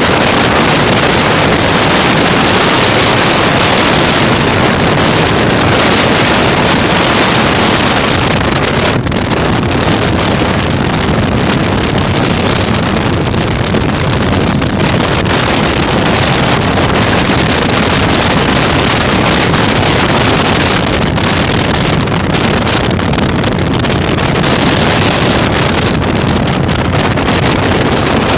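Heavy wind rushing over the microphone of a moving motorcycle, with the Yamaha Virago 1100's V-twin engine running underneath. The noise is loud and steady, easing briefly about nine seconds in.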